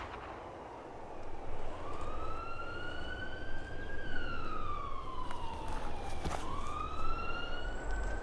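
Emergency vehicle siren wailing. A slow tone rises for a couple of seconds, glides down, then rises again.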